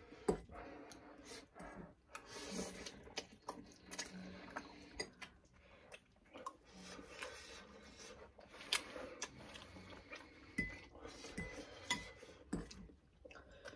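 Metal forks and spoons clinking and scraping against ceramic bowls as noodles are eaten, in scattered short clicks.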